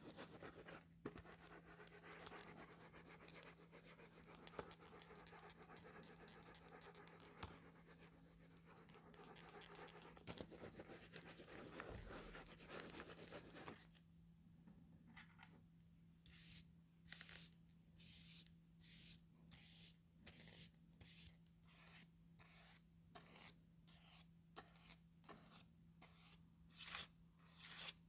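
Comb teeth scratching across a sheet of calendar paper: a continuous soft rubbing scratch for about the first half, then quick separate strokes, about two a second, to the end.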